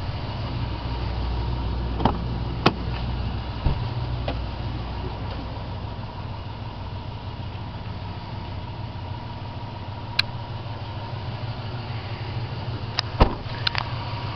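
Toyota Tundra's 4.7-litre V8 idling with a steady low rumble. A few short sharp clicks and knocks come over it, at about 2, 3 and 4 seconds in and again near the end.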